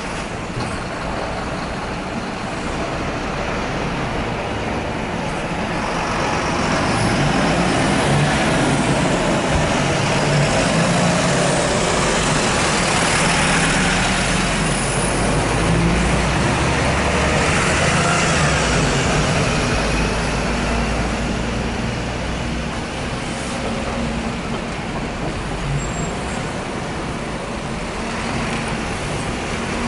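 City street traffic: diesel city buses and a delivery truck driving past close by, engines running and tyres on the road. The sound swells about six seconds in as the truck passes nearest, holds for some fifteen seconds, then eases before another vehicle approaches near the end.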